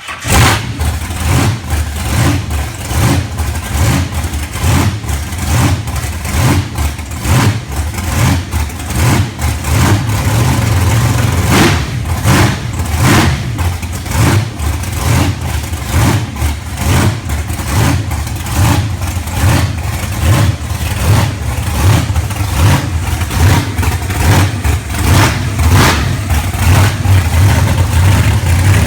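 The Boxvette's big-block Chevy V8 fires up right at the start, then runs loud with repeated blips of the throttle, the level rising and falling constantly.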